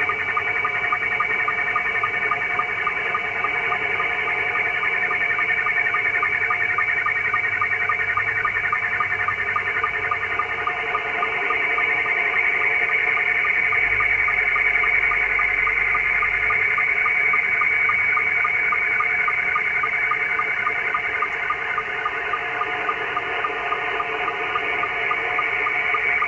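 Slow-scan television (SSTV) picture signal on the 20-metre amateur band, received in Scottie 2 mode and played through an HF transceiver's speaker. It is a steady, warbling screech of shifting tones with a fast, regular ticking of line-sync pulses as each line of the image is sent.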